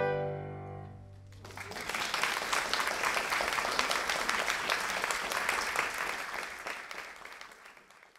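The last held chord of solo violin with a small ensemble dies away, and an audience starts applauding about a second and a half in, the applause fading out near the end.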